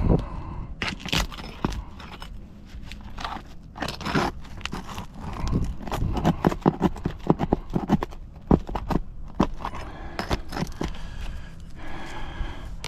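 Irregular scraping, crunching and clicking as a tool is worked up under asphalt roof shingles to get at a nail.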